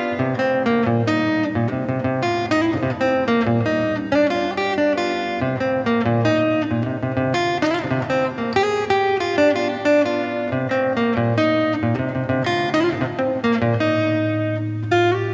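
Lead guitar playing a Congolese sebene melody on a Yamaha silent guitar: quick runs of picked single notes over steady low notes, the variation of the phrase that adds the seventh for a more melancholy sound.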